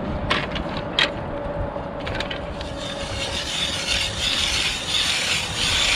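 Hand-cranked ice auger drilling into lake ice: a few sharp knocks as the blades are set on the ice, then from about three seconds in the blades scraping and grinding into the ice, swelling with each turn of the crank.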